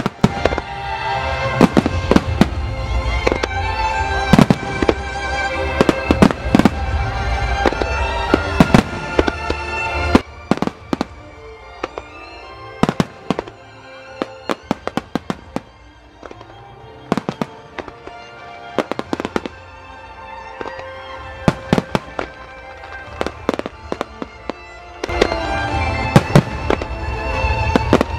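Fireworks finale: a rapid string of shell bursts and crackling bangs, with music of long held tones playing alongside. The bangs come thick and fast for the first ten seconds, thin out to scattered reports with quieter music through the middle, and pile up again about three seconds before the end.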